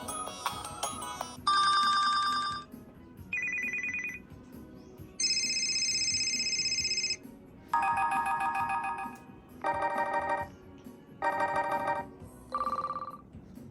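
HTC One X phone playing a run of short electronic ring tones one after another, each a fast-pulsing, trilling tone lasting one to two seconds, with short gaps between them. A chiming melody dies away in the first second, and the last tone slides in pitch.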